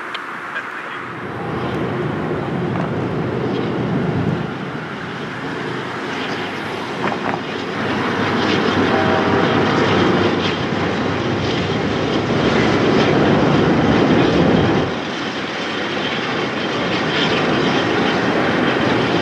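Diesel freight locomotives running as they approach, a steady heavy engine noise that grows louder about a second in and stays loud, easing briefly twice.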